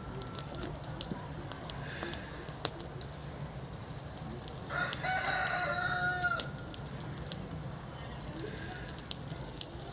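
Burning rice straw crackling with scattered sharp pops. About five seconds in, a rooster crows once, a call of nearly two seconds that is the loudest sound.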